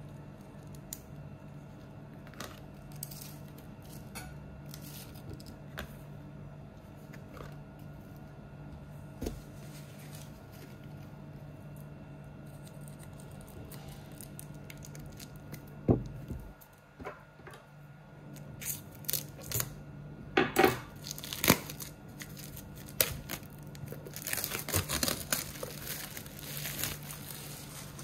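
Product packaging being handled and opened: scattered clicks and knocks, a sharper run of them past the middle, then a few seconds of dense tearing and crinkling of plastic and cardboard near the end, over a steady low hum.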